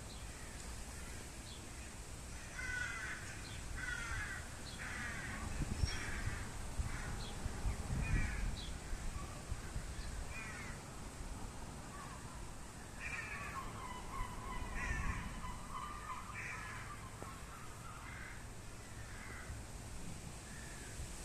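Harsh, rasping bird calls in two bouts of repeated caw-like notes, with a few short high chirps between them. Gusts of wind buffet the microphone now and then.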